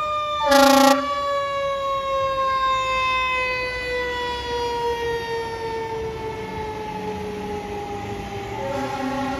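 Fire engine's siren, wound up just before, slowly winding down with a long falling wail, the slow coast-down of a mechanical siren. A loud air-horn blast about half a second in, and the air horn sounds again near the end.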